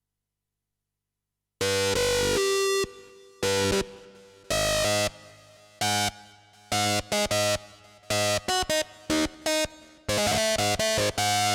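Roland JD-990 synthesizer playing its 'Voodoo Growl' patch. After a short silence, notes and chords start about one and a half seconds in: a few held notes that die away, then many short notes played in quick succession.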